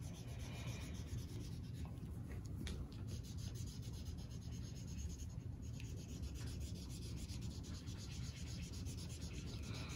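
Felt-tip marker scrubbing back and forth on paper while coloring in a filled area: a soft, steady scratchy rubbing made of many quick strokes.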